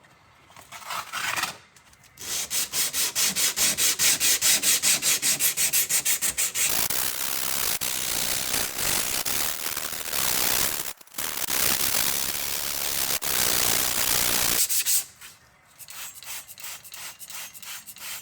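An abrasive scrubbed rapidly back and forth along the steel blade of a nakiri knife, polishing it after rust removal. It starts as quick, even strokes, about nine a second, then runs together into a continuous scrubbing with a brief pause. Near the end it turns to lighter, quieter strokes.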